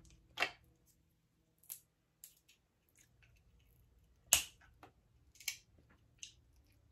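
Snow crab leg shells being cracked and snapped open by hand: a handful of sharp, separate cracks, the loudest about four seconds in.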